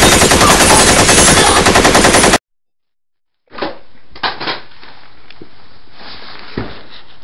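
Loud burst of rapid machine-gun fire, a dubbed-in sound effect, lasting about two and a half seconds and cutting off abruptly. After a second of silence there is quieter room sound with a few knocks and thumps of movement.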